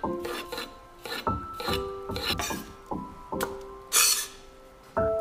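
Chef's knife slicing a cucumber on a wooden cutting board: a quick, uneven run of cuts, each ending in a tap on the board, with one longer scraping stroke about four seconds in. Background music plays underneath.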